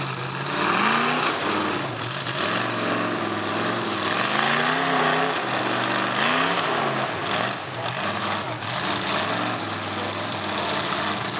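Mud truck's 388 small-block Chevy V8 revving up and down repeatedly, the engine pitch rising and falling several times over a steady rush of noise.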